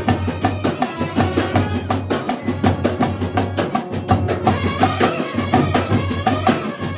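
Kerala bandset brass band playing: trumpets carrying a melody over a quick, steady beat of side drums.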